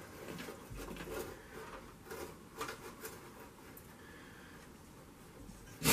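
Faint rustling and light scraping of a thin copper thermostat capillary tube being pulled and fed through a hole in a freezer's liner, with a few small clicks, then a sharp knock at the very end.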